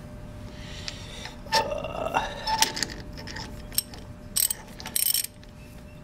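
A ratchet wrench turning a stud remover on a tight cylinder-head stud in a Perkins 203 diesel block, making metallic clicks and rasps. There is a short pitched creak about a second and a half in, then a few sharp ratchet clicks near the end.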